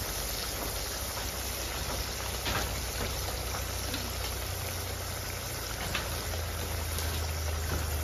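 Pork curry simmering in an iron wok over an open wood fire: a steady bubbling hiss, broken by a few sharp crackles.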